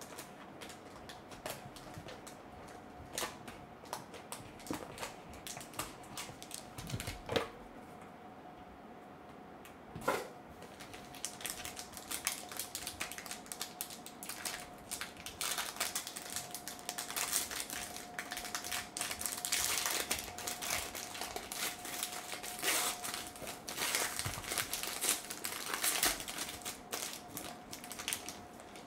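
Trading-card box and foil card pack being handled: scattered clicks and knocks in the first ten seconds, then from about eleven seconds in a continuous crinkling of the foil wrapper as the pack is worked and torn open.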